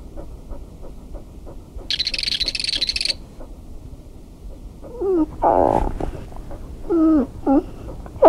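A sleeping dog whimpering and giving short muffled woofs as it dreams, a series of short cries bending up and down in pitch from about halfway through, with one louder rough yelp among them. A brief high-pitched noise comes about two seconds in.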